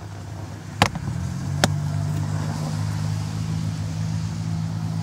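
Plastic door-sill trim panel clicking twice, less than a second apart, as it is worked under the rubber door seal. A steady low mechanical hum then sets in and runs on.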